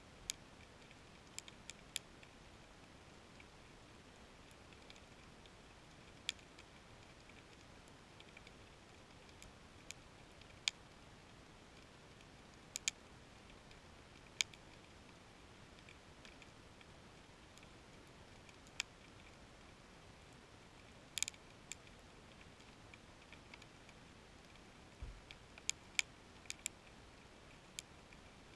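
Sharp, isolated clicks heard underwater at irregular intervals, a few seconds apart and sometimes in quick pairs or clusters, over a faint steady hiss.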